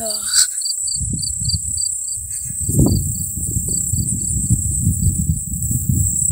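A cricket chirping in a high-pitched pulse about four times a second, fading out about four and a half seconds in, over a steady high insect hiss. Louder, uneven low rumbling noise from the phone being carried on a walk sits underneath.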